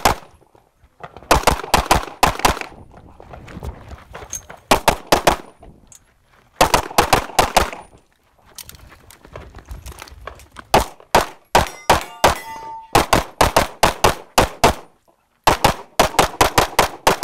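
Pistol fire from an Open-division 2011 pistol in 9mm major: fast strings of shots a few tenths of a second apart, in groups of about four to eight, broken by pauses of one to two seconds.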